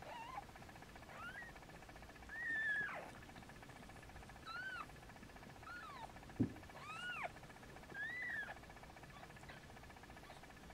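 Newborn kitten mewing: about seven short, high-pitched mews that rise and fall, one of them a little longer, with a soft thump about six and a half seconds in.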